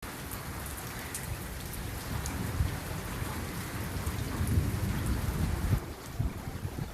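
Steady rain falling on a rooftop, a continuous hiss with single drops ticking, under a low rolling rumble of thunder that swells about four seconds in.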